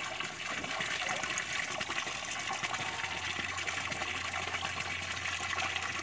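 A steady stream of running water pouring into a plastic kiddie pool, splashing over the back of a mallard drake bathing under it.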